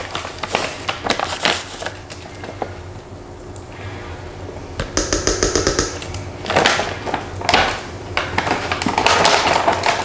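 Protein powder being scooped from its tub into a blender jar: a plastic scoop scraping through the powder, with clicks and taps, a quick rattle of clicks about five seconds in, and rougher scraping near the end.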